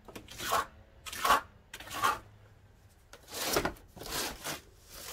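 A steel trowel working stucco: about six short, irregular scraping strokes, as mud is taken from a pan and pressed onto metal lath around a door frame for the first coat.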